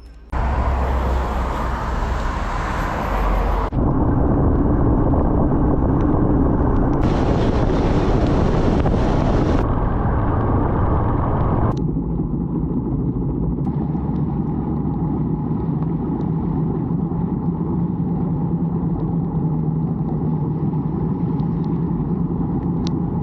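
Motorcycle riding at road speed: dense wind rush over the engine, with a steady engine hum coming through in the later part. The sound changes abruptly several times, as separate riding stretches follow one another.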